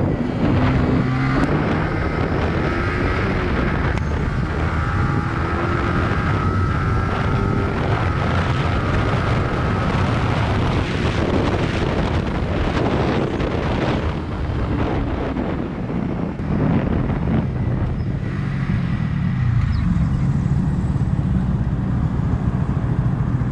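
Yamaha YZF-R15's single-cylinder engine running at road speed, its pitch rising and falling as it speeds up and slows, under heavy wind noise on the microphone.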